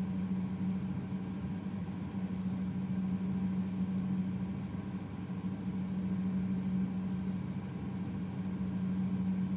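Steady low electrical hum at one even pitch.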